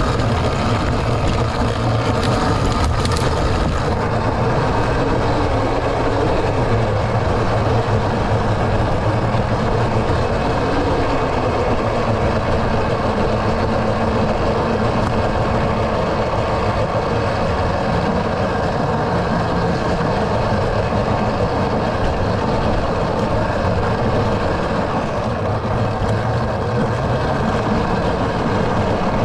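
Segway X260 electric dirt bike ridden along a sandy forest trail: a steady rush of wind on the camera mixed with tyre and drivetrain noise.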